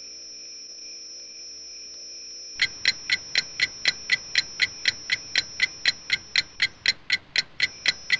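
Clock ticking, fast and even at about four ticks a second, starting about two and a half seconds in over a faint steady high-pitched tone.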